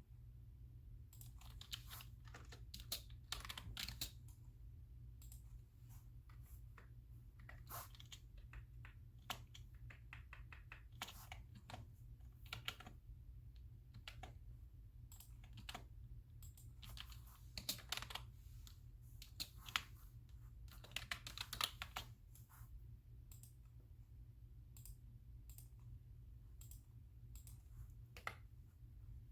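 Typing on a computer keyboard: irregular runs of key clicks with short pauses between them, thinning out to scattered single clicks in the last several seconds, over a steady low hum.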